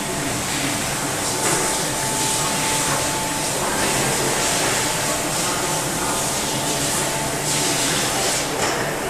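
KBA Rapida 105 four-colour sheetfed offset press with coater running and feeding sheets: a steady machine din with a strong hiss of air and a thin steady tone.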